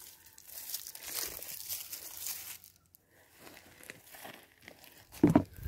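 A goat's long shaggy hair rubbing and rustling against the microphone in two stretches, with a single loud thump near the end.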